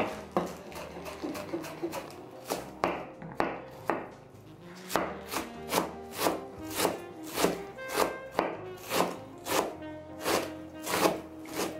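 Chef's knife chopping fresh herbs (cilantro, green onion and chives) on a plastic cutting board. A few scattered chops at first, then from about halfway a steady rhythm of about two chops a second.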